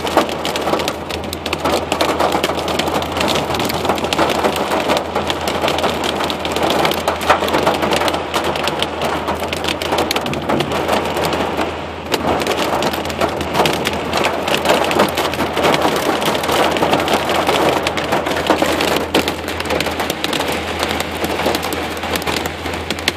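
Heavy rain and hail pelting a truck's roof and windows, heard from inside the cab as a dense, steady drumming of many small hits.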